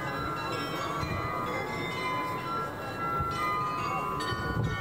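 Bells of the Munich Rathaus-Glockenspiel chiming a tune, with new notes struck every so often and each ringing on over the ones before, over steady background noise.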